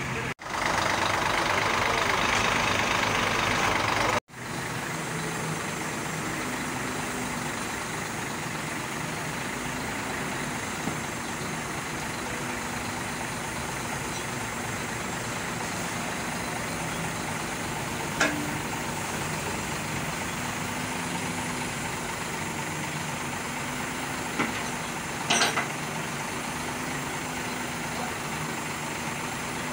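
Diesel engine of a Scania crane truck idling steadily, louder for the first few seconds, with a few short clicks in the second half.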